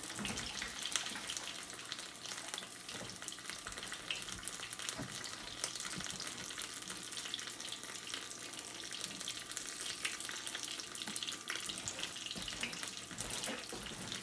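Folded birria taco frying in shallow grease in a nonstick skillet: a steady sizzling hiss with many small crackles and pops.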